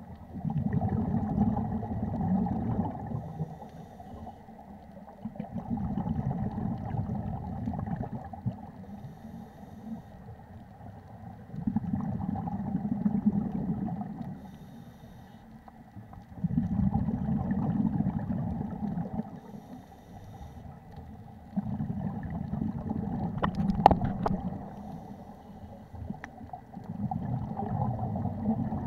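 Scuba diver's exhaled bubbles from the regulator, heard underwater: a bubbling rush in bursts of two to three seconds about every five seconds, six breaths in all, with quieter pauses as the diver inhales. A sharp click about 24 seconds in.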